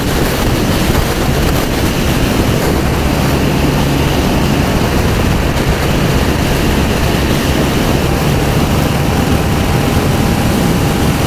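Motorcycle riding at speed: steady loud wind rush over the microphone with the engine running underneath.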